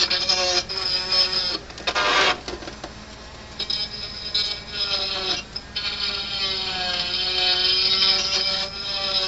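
A small electric motor running with a steady whir whose pitch wanders slightly, broken by a short rattling burst about two seconds in.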